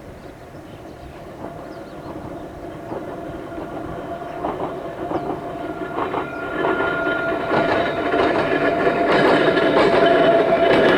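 An Ohmi Railway old-type electric train with nose-suspended traction motors approaching and passing close, growing steadily louder. Its wheels clack over the rail joints, over a steady whine.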